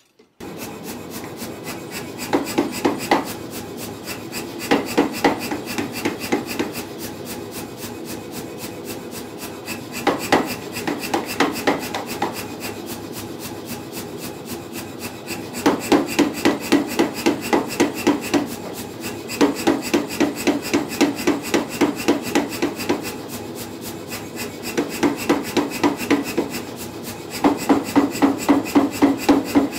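Power hammer forging a red-hot steel bar: bursts of rapid, evenly spaced heavy blows, several a second, with a quieter steady beat from the running hammer between the bursts.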